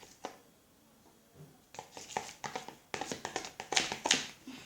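Wet, sticky clicks and smacks of a glue and shaving-foam slime mixture being stirred by hand in a bowl. They come in quick irregular runs starting a little under two seconds in.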